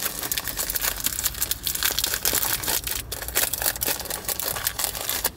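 Snack packet crinkling and rustling as it is handled and opened, a dense run of small crackles throughout.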